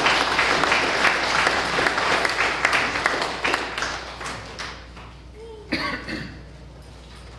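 Congregation applauding, the clapping dying away about four to five seconds in, with a brief vocal sound shortly after.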